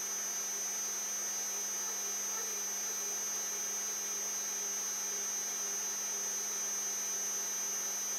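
Z-axis stepper motors of a Protomaker 3D printer running at constant speed, a steady hum with a high whine as they turn the threaded rods and move the carriage.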